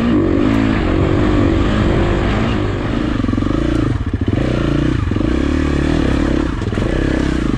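KTM dirt bike's single-cylinder engine running under throttle, revving up at the start and rising and falling with the throttle. After a brief dip about four seconds in, it runs at low revs with a slow, pulsing chug as the bike picks its way over rock.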